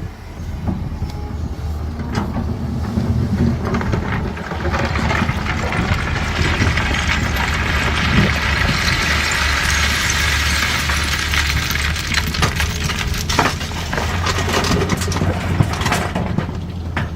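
CAT 320D excavator's diesel engine running steadily under load while stone scrapes and clatters, a rush of grinding and rattling that builds from about four seconds in and eases near the end.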